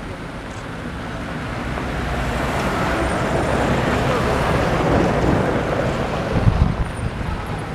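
A vehicle engine running, its noise swelling toward the middle and then easing, with faint murmured voices. A few low thumps come near the end.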